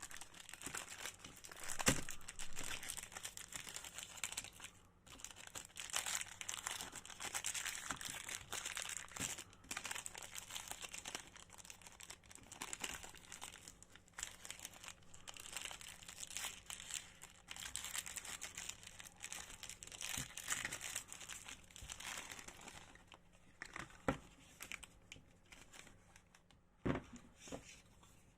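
The wrapper of a Reese's peanut butter tree crinkling and tearing as it is unwrapped by hand, in a long run of dense crackling with sharp snaps. It thins to a few separate crinkles near the end.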